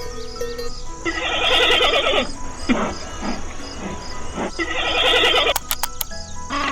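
Horse whinnying twice, each a quavering call of about a second, over faint background music.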